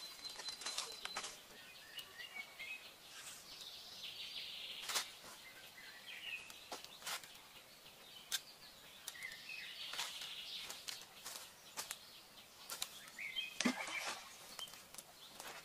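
Forest ambience with short bird chirps now and then over a faint high hiss, broken by scattered sharp clicks and taps.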